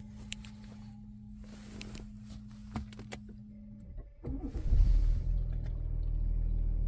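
Audi A8 being started: a few clicks and a steady low hum for about four seconds, then the starter cranks and the engine catches and settles into a steady idle. No rattle is heard from the repaired air-vent flap actuator gears, whose broken gearbox used to make noise at every start.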